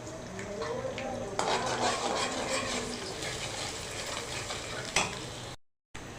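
Rice and egg sizzling in a frying pan while being stirred, with a spatula scraping the pan. The sizzle grows louder about a second and a half in, and there is a sharp knock on the pan near the end before the sound cuts out briefly.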